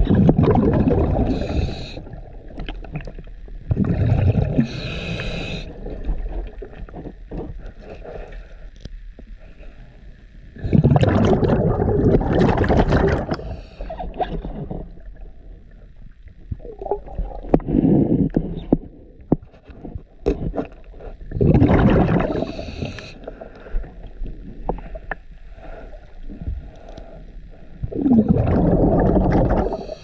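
A diver breathing through a scuba regulator underwater: about six loud bubbling exhalations a few seconds apart, alternating with short hissing inhalations.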